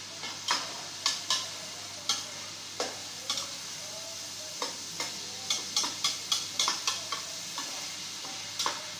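Slotted metal spatula clinking and scraping against a steel pot while stirring chicken frying in oil, over a steady sizzle. The clinks come irregularly, with a quicker run of them a little past the middle.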